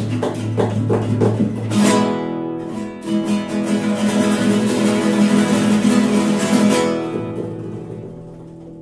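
Two classical guitars playing in duet: about three chord strokes a second, then a loud chord, then several seconds of fast, dense strumming that ends on a chord left to ring and fade.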